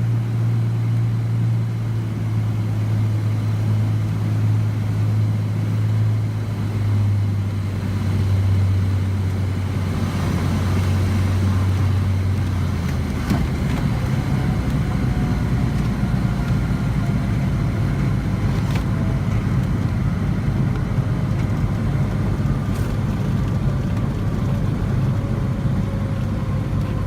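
Cessna 207's single six-cylinder piston engine and propeller droning steadily. About halfway through the low, even drone gives way to a rougher, noisier sound with faint tones slowly gliding down.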